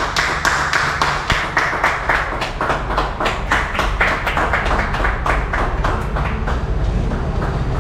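A few people clapping steadily, about four claps a second, with the clapping growing a little weaker near the end.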